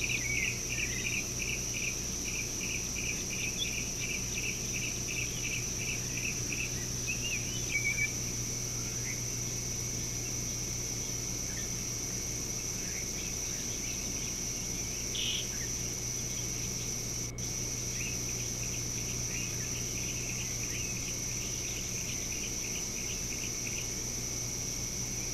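Outdoor ambience dominated by a steady, high-pitched insect drone. For about the first eight seconds a call repeats about two to three times a second; after that come scattered short bird chirps. A low steady hum sits underneath.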